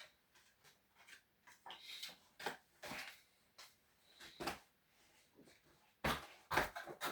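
Faint, scattered handling noises of guitar packaging and accessories: soft rustles and light knocks at irregular moments, louder and closer together about six seconds in.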